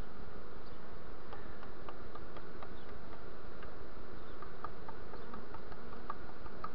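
A swarm of honeybees massed at the hive entrance, buzzing steadily. Short higher notes come and go here and there over the hum.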